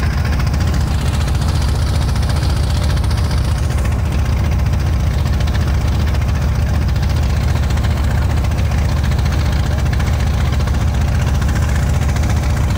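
Wooden boat's engine running steadily underway, a loud, even low drone with a fast pulse, with water rushing along the hull.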